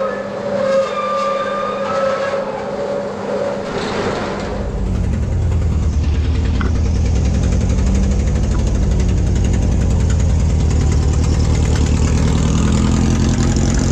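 A metal roller shutter door rolling up with a steady whine, then, about four and a half seconds in, a VW T25 van's engine starts running with a low, even pulse.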